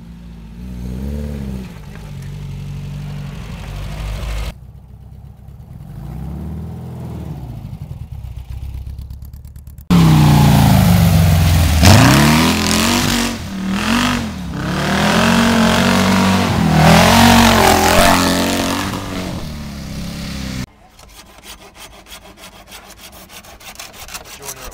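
Air-cooled Volkswagen engines of off-road Baja Bugs and buggies revving up and down in several short runs. The loudest stretch, about ten seconds in, is a buggy revving hard with its wheels spinning in loose dirt. Near the end the engine sound stops and a rough, sawing-like scraping takes over from hands working on a buggy's body.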